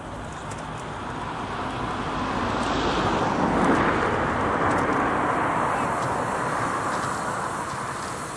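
A vehicle passing by: a broad rushing noise that swells to a peak about four seconds in and then fades away.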